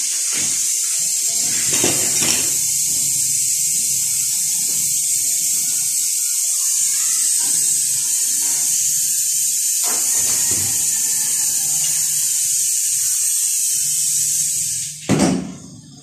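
Gas welding torch flame burning with a loud, steady hiss while brazing a freezer's refrigerant pipe. Near the end the hiss drops off sharply as the flame is turned down small.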